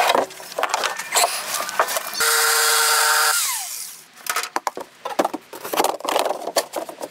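Wood being knocked and handled, with a power saw's motor running steadily for about a second midway and then winding down, followed by more scattered clatter of wood and tools.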